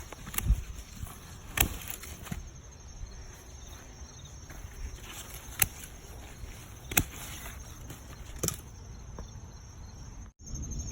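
Hand pruners snipping through Thai eggplant stems: five or so sharp clicks spaced irregularly a second or more apart. Insects chirp steadily underneath.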